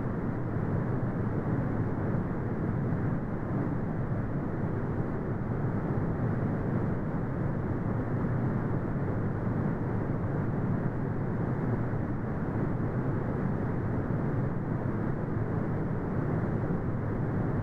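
Steady brown noise: a deep, even rumbling hiss weighted toward the low end, with no changes.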